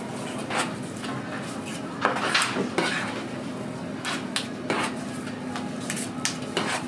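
Knife blade scraping and tapping on a plastic cutting board as raw fish cake paste is cut and shaped, in irregular clicks and short scrapes. A steady low hum runs underneath.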